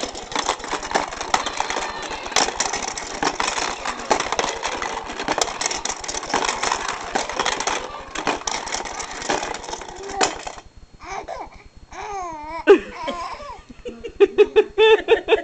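A baby's rolling-animal activity toy rattling and clattering for about the first ten seconds. Then a baby's squealing vocal glides, and near the end a baby laughing in quick repeated 'ha' sounds.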